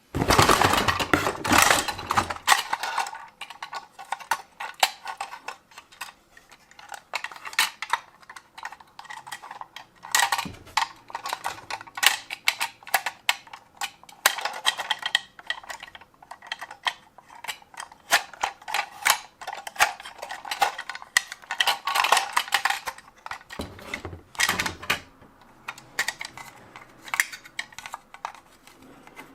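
Small toy vehicles clattering and clicking as they are handled, a dense run of light irregular knocks, loudest near the start.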